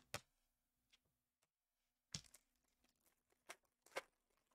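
Foil trading-card pack wrapper being torn and crinkled open by hand: a few faint, short, sharp crackles with near silence between them.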